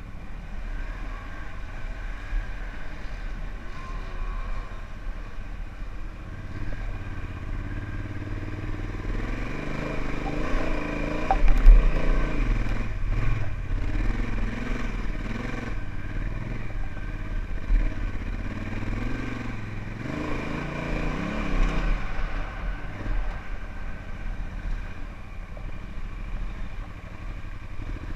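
Honda Africa Twin's parallel-twin engine running under way on a dirt trail, its revs rising and falling again and again through the middle stretch, over a steady low rumble on the microphone. A single sharp knock stands out about a third of the way in.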